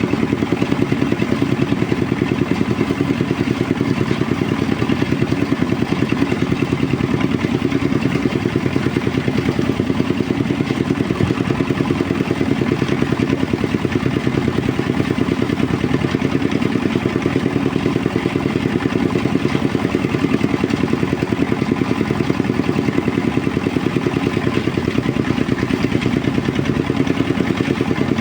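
Engine-driven rice threshing machine running steadily at a constant speed, its engine beating evenly with no change in load.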